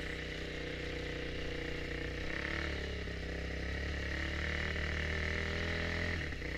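Honda CRF250X enduro motorcycle's single-cylinder four-stroke engine running steadily at low throttle, its pitch almost unchanged, a little louder in the second half.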